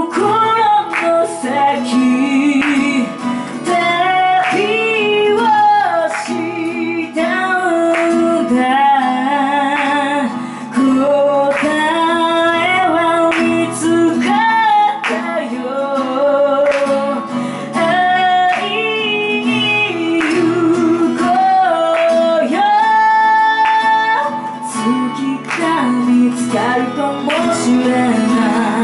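A woman singing a song live while accompanying herself on acoustic guitar, with vibrato on her held notes.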